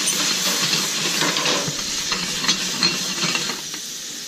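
Mushrooms sizzling in butter and dashi in a stainless steel skillet, with scattered crackles as the pan is moved by its handle. The dashi is deglazing the pan, lifting the caramelized bits off the bottom. The sizzle eases slightly toward the end.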